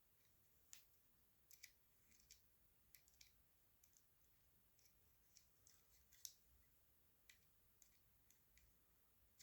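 Faint, irregular clicks and ticks of small parts and tools being handled while a paintball marker's receiver is put back together, the sharpest click about six seconds in.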